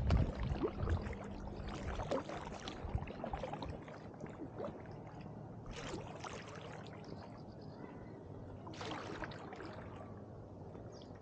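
Double-bladed paddle dipping and pulling through calm water beside an inflatable canoe: splashes and drips from the blades every few seconds, opening with a low rumble.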